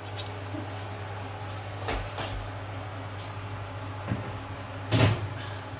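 A lasagna tray going into an oven and the oven door being shut: a knock about two seconds in and a louder thud of the door closing near the end, over a steady low hum.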